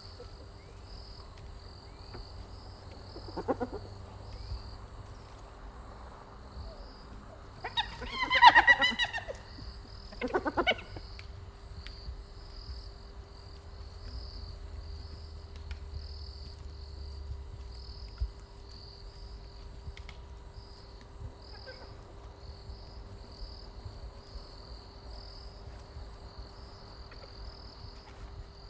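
Spotted hyena calling: a faint call, then a louder wavering call about eight seconds in and a short one soon after, over steady pulsing insect chirring.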